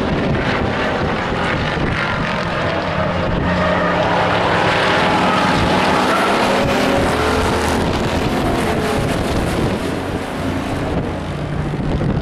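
Engines of several stock pickup race trucks running hard as the pack laps the oval, swelling loudest about halfway through as the trucks come past, then easing off.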